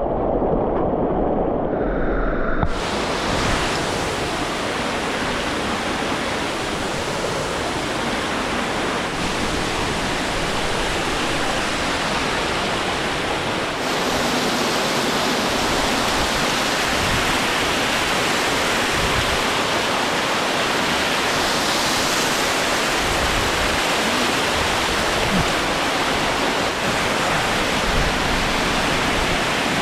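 Steady rush of a close waterfall, an even hiss of falling water. It turns brighter and fuller about three seconds in.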